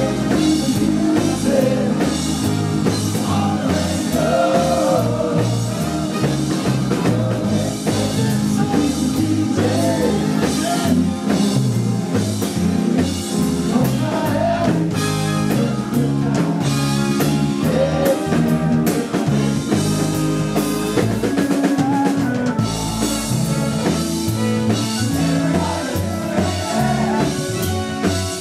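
Live rock band playing: a steady drum beat under full band music, with a lead singer.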